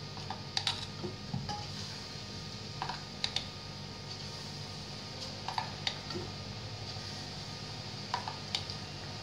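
Metal spoon clinking against the steel batter bowl and the rim of the kadhai as pakora batter is scooped and dropped into hot oil. The clinks come in pairs about every two and a half seconds.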